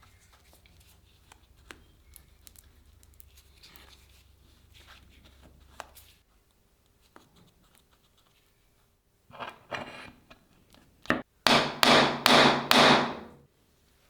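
Scraping or rubbing strokes on the workpiece during the restoration: faint handling clicks, then two softer strokes, a click, and four loud scraping strokes in quick succession near the end.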